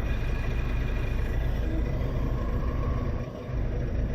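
1996 Toyota RAV4's four-cylinder engine idling steadily, a low even rumble, running on all four cylinders now that the misfiring cylinder-four fuel injector has been replaced. The rumble dips briefly a little past three seconds in.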